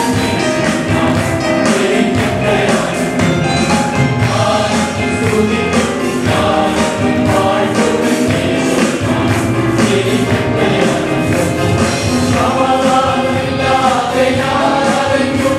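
Gospel worship song: a group of voices singing with instrumental accompaniment and a steady beat.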